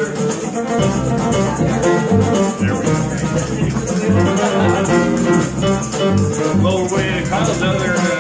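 Live acoustic band music: upright bass and guitar with a shaker keeping a steady rhythm.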